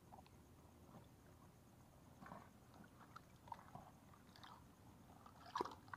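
Faint, scattered sloshing and rustling in shallow water and wet mud while searching for a land crab, getting busier in the second half, with one sharper sound near the end.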